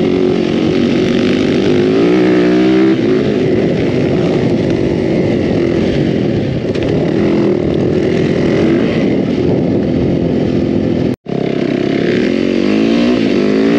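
Yamaha four-stroke dirt bike engine heard close up from onboard while riding, revving up and falling back as the rider accelerates and shifts. The sound drops out for an instant about eleven seconds in.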